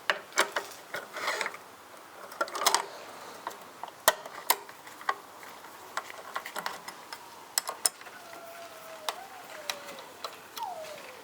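Small metal clicks and ticks, irregular and sharp, as the black screws and hex key of a license plate frame are handled and fitted. In the last few seconds a thin, wavering tone slides downward.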